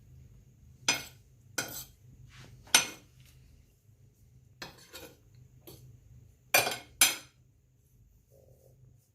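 Dishes and cooking utensils being handled during food preparation: a series of sharp clinks and knocks, the loudest about a second in, near three seconds in, and a pair close together around six and a half to seven seconds.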